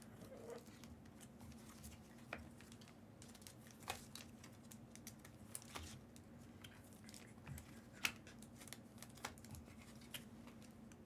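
Faint handling sounds of trading cards and their packaging: a few scattered clicks and light rustles as cards are squeezed into place, over a low steady hum.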